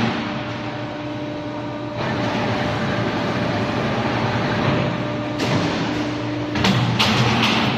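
Automatic roll-forming machine for C, Z and U steel profiles running: a steady motor hum with a constant whine as the steel strip feeds through the roller stands, growing louder about two seconds in. Two short, loud bursts of noise come near the end.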